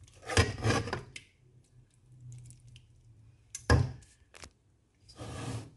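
A serving utensil clicks and knocks against a glass bowl of fish-and-okra stew. There is a brief burst of noise in the first second, one loud sharp knock followed by a few lighter clicks about three and a half seconds in, and another short burst of noise near the end.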